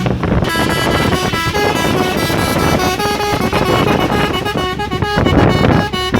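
Three-trumpet telolet air horn on a Hino truck playing a fast melody of short notes jumping between pitches, over the truck's engine and road noise.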